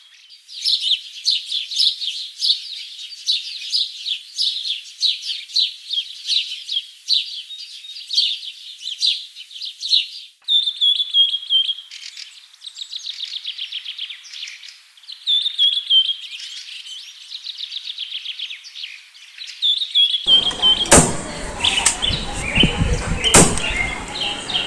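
Small birds chirping in quick, high-pitched trains, with a short falling whistle repeated every few seconds. About twenty seconds in, a louder rumbling noise joins them, broken by three or four sharp clicks or bangs.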